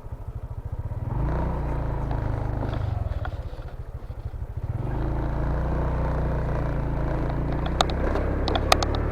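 Motorcycle engine pulling up a rough rocky track, its revs rising about a second in, easing off, then picking up again and holding steady. A few sharp clicks or knocks near the end.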